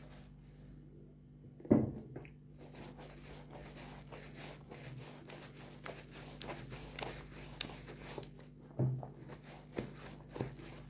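Soap being lathered with a sponge in a basin of foamy water: wet squishing and a fine crackle of foam. There is a sharper wet slap about two seconds in and a few more squelches near the end.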